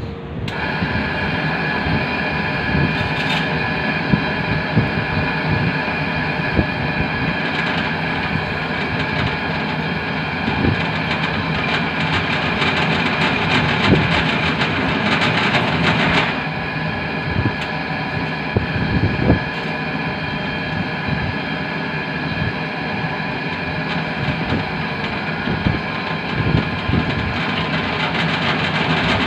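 Pillar drill press running, its twist drill cutting into a metal plate as the bit is fed down by the hand lever: a steady motor whine under a harsh cutting noise with scattered knocks. The harsher cutting noise drops away about 16 seconds in.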